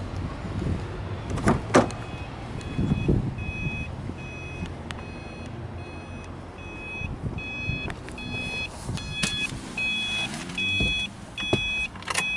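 Car door latch clicking open twice, then the Subaru Impreza's warning chime beeping over and over, about twice a second, louder toward the end; a sharp knock near the end.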